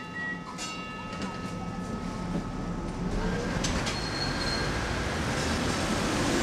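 Street tram passing close by: wheels rumbling on the rails, growing louder toward the end, with a few sharp clicks about three and a half seconds in and a brief high wheel squeal just after. A motor whine rises in pitch as the tram moves off.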